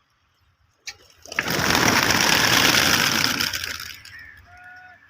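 Pigeon's wings flapping hard close by for about two and a half seconds, a rapid clattering flutter, after a single click about a second in.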